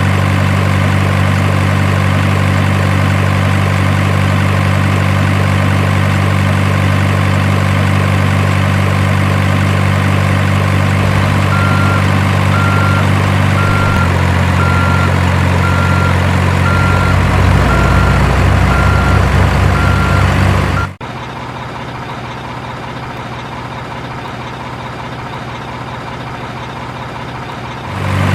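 Electronic diesel-engine sound from a remote-control model truck's sound unit, running steadily and shifting pitch about halfway through. A reversing beeper then sounds at an even pace until the engine sound cuts off abruptly about three-quarters of the way in, leaving quieter noise before the engine sound returns at the very end.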